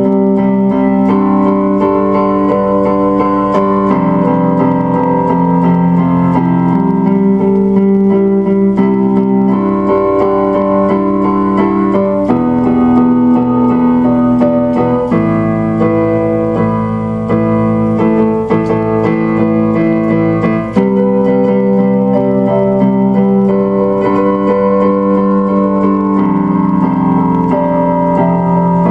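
Background piano music: slow, held chords that change every few seconds.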